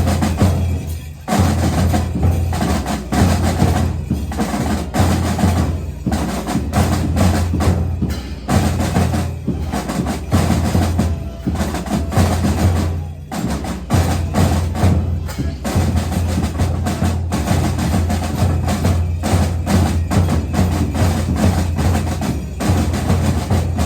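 Background music driven by heavy drums and percussion, with a strong, steady bass beat.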